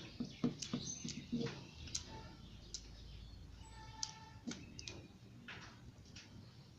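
Plastic pieces of a Pyraminx puzzle clicking irregularly as its layers and tips are twisted during solving.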